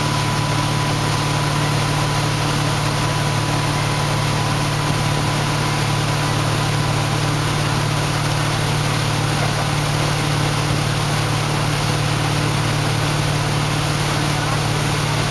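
Motorboat engine running steadily while towing, under a steady hiss of churning water.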